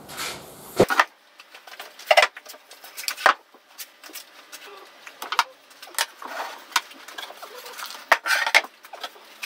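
Solid pine frames and panels being set down and handled on a wooden workbench: a string of irregular wooden knocks and clunks, the heaviest a thump about a second in.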